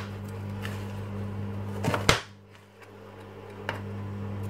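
Kitchen knife slicing an onion on a chopping board: a few separate knocks of the blade against the board, the loudest about two seconds in, over a steady low hum.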